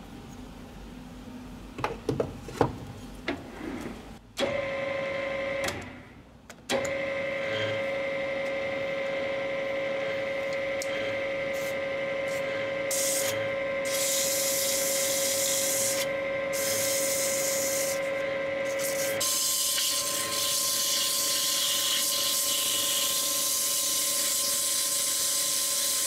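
Metal clinks as an aluminium wheel hub is set in a lathe chuck, then the metal lathe starts about four seconds in and runs with a steady whine. Hand-held abrasive pressed against the spinning aluminium hub adds a steady hiss, continuous from about two-thirds of the way through, as the hub is polished.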